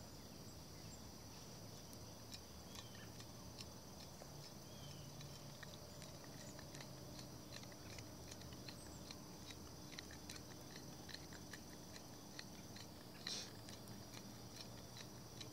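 Faint, steady high-pitched trilling of crickets, with scattered faint clicks and one brief louder sound near the end.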